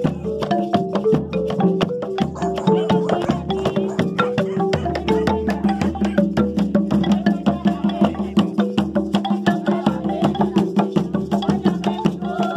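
Background music with a quick, even clicking percussion beat over a bass line and a melody of held notes.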